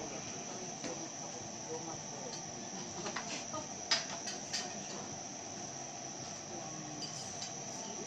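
Restaurant terrace ambience: a steady high-pitched tone, with an insect-like trill, over a low even background hum. A few light clicks and clinks of dishes or cutlery come between about three and four and a half seconds in.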